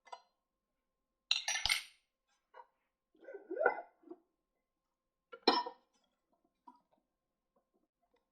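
Short clinks and knocks of small hard tools or parts being handled and set down on a dental lab bench, one at a time with pauses between. The loudest come a little over a second in and about five and a half seconds in, with a scraping clatter in between.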